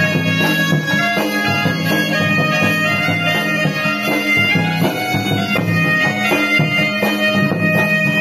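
Traditional folk music: a reed pipe plays a held, piercing melody over a steady low drone, with drum strokes beating along.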